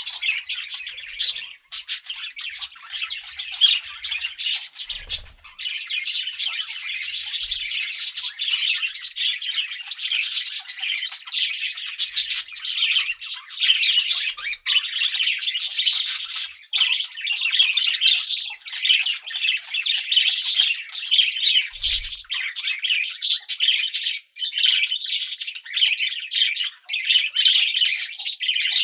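Pet budgerigars chattering and warbling continuously, a dense run of short, sharp chirps and squawks overlapping one another.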